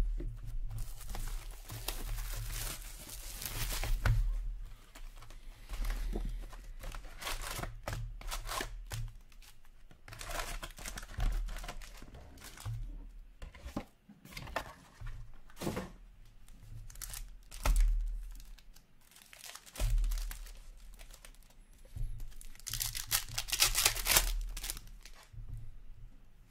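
Plastic wrap and foil hockey-card pack wrappers being torn open and crinkled by hand, in repeated bursts, with small clicks and taps from handling the cardboard box and cards. The longest tear comes about three-quarters of the way through, as a pack is ripped open.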